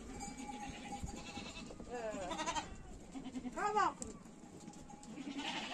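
Goats bleating: a few short bleats about two seconds in, then a louder, longer bleat just past the middle.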